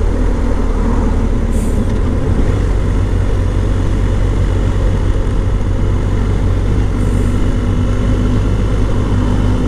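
Motorcycle engine running steadily under way, its note rising slightly over the last couple of seconds.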